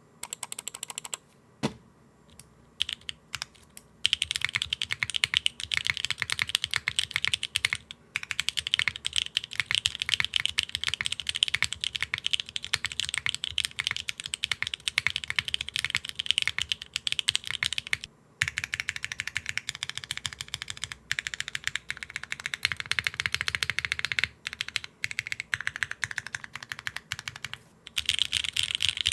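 Fast typing on a Neo65 mechanical keyboard fitted with prototype HMX Light Tactile switches, a dense run of key clacks. A few single keystrokes open it, then continuous typing starts about four seconds in, with a few short pauses.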